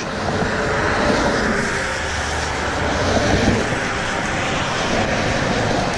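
Traffic passing on a rain-wet road: a steady tyre hiss with a low rumble underneath.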